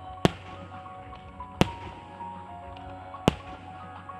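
Three sharp firework shell bursts, each a single loud crack, about a second and a half apart, over steady music.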